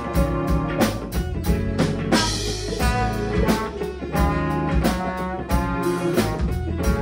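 Live band playing: violin, trombone, two electric guitars, electric bass and drum kit together, with a steady beat.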